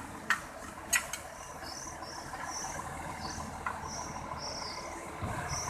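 Insects chirping, short high chirps repeating about every half-second, over a low background rumble. A few sharp clicks come in the first second or so.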